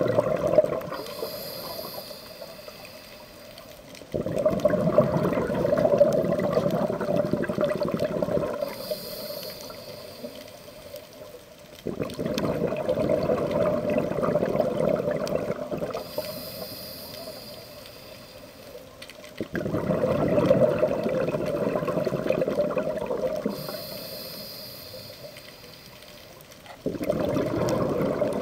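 Scuba diver breathing through a regulator underwater: each short, high hiss of an inhale is followed a couple of seconds later by a rush of exhaled bubbles that starts suddenly and fades over a few seconds. This repeats about every seven to eight seconds, four breaths in all.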